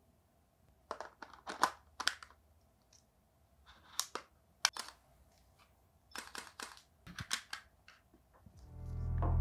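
Sharp clicks and rattles of a Panasonic Lumix S5II camera body and its Lumix 20-60 mm L-mount kit lens being handled as the lens is fitted to the mount and its cap handled, coming in three short groups. Background music fades in near the end.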